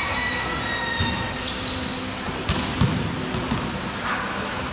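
Basketball bouncing on a hard court during play, with a couple of louder thumps between about two and a half and three seconds in, and short high squeaks from players' shoes.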